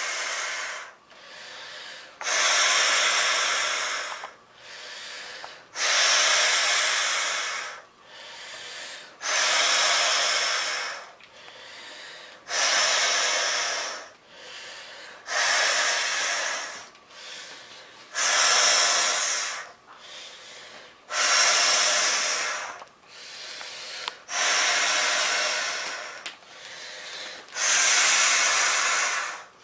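A person blowing up an inflatable vinyl beach ball by mouth: about nine long breaths blown into the valve, one every three seconds or so, each followed by a short, quieter intake of breath.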